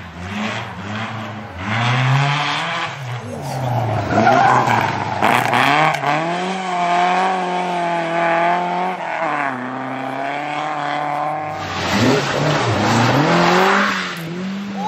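Rally car engine revving hard, its pitch rising and falling through several gear changes and held high and steady for a few seconds in the middle. Near the end there is a loud rush of tyre and road noise as the car slides past.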